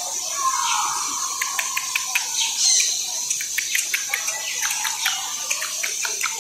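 Birds in a tropical aviary chirping and calling, with many short, sharp chirps scattered throughout over a steady high hiss.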